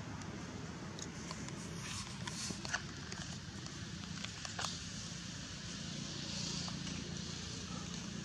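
Outdoor ambience: a steady low hum with a few small clicks and rustles, about a second in, near three seconds, and shortly before the five-second mark. No screaming.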